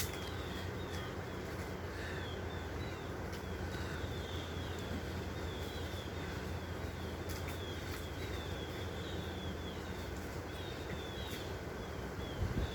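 Steady low machine hum with a small bird's short, high, falling chirps repeated over it, about two a second.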